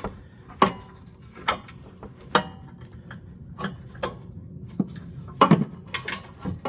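A metal ratchet wrench clinking and knocking against the snowblower's engine housing as it is worked into place on a hard-to-reach bolt: a scatter of irregular sharp clicks, loudest about five and a half seconds in.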